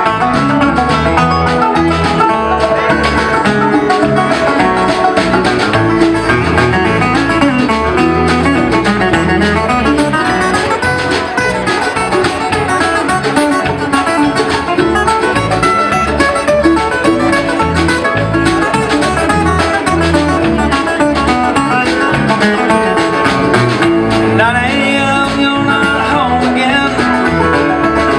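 Bluegrass band playing live, with banjo, acoustic guitar and mandolin over a steady beat.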